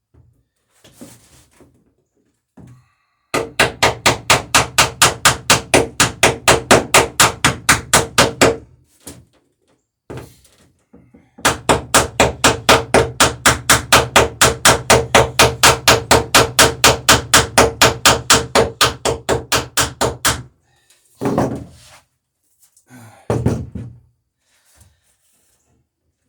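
Rapid hammering of rivets through the overlapping planks of a lapstrake wooden boat hull, to set and peen them. Two long runs of quick, even blows, about six a second, the first for about five seconds and the second for about nine, followed by a few single knocks near the end.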